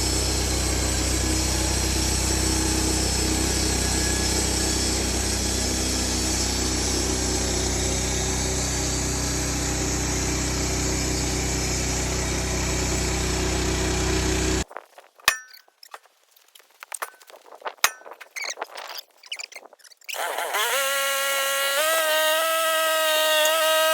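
Pull-start bandsaw sawmill running under load as the blade cuts through a log, a steady mix of engine and sawing noise. It cuts off abruptly about 15 seconds in. A few seconds of scattered clicks and knocks follow, then the engine revs up and settles at a steady pitch near the end.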